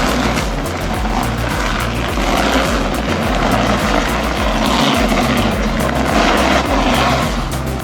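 Background music with a steady bass beat, over the continuous engine noise of heavy machinery.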